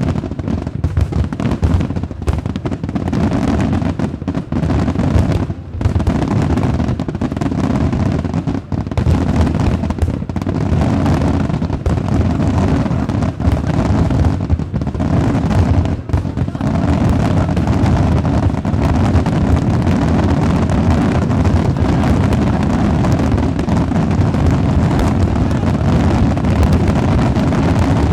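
Fireworks display with a rapid barrage of firework bangs and crackling. Over the second half the bursts merge into a continuous rumble.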